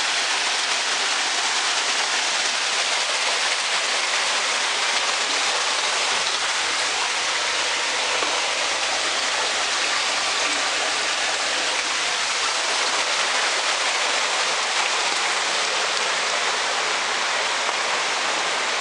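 Stormwater running through a gross pollutant trap: water pouring from outlet pipes and rushing down a rock-lined channel, a steady hiss of running water with no let-up.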